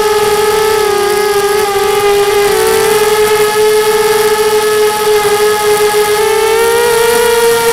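QAV250 racing quadcopter's four brushless motors and propellers whining steadily in flight, heard from on board. The pitch wavers slightly with throttle and rises a little near the end.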